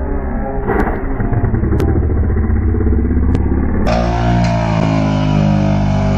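A quad bike's engine running as the ATV rolls over and tumbles down a steep dirt slope, with a few sharp knocks from the tumble. About four seconds in the sound turns abruptly to a steadier, fuller engine note.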